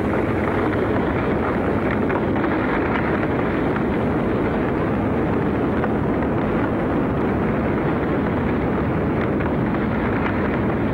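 Steady rushing noise of a basaltic lava fire fountain erupting at Eldfell, mixed with strong wind on the microphone, with faint crackles now and then.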